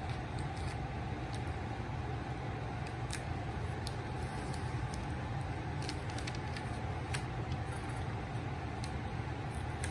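Steady background hum, with faint scattered clicks and ticks of taped paper cut-outs being picked and peeled up off a painted paper sheet.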